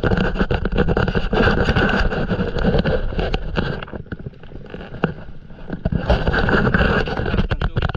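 Stand-up paddle strokes: the paddle blade dipping and splashing water close to the microphone, in two bouts, a longer one of about four seconds and a shorter one from about six seconds in.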